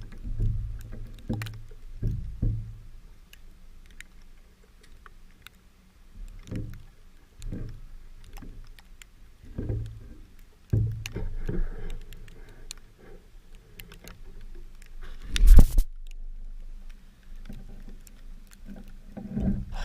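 Gusty wind buffeting the GoPro's microphone: a low rumble that swells and drops every second or two, with one louder knock about three-quarters of the way through.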